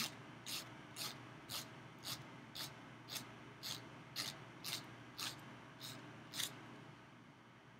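Nail file rasping against the tip of a fingernail in short strokes, about two a second, filing off the excess nail wrap; the strokes stop about six and a half seconds in.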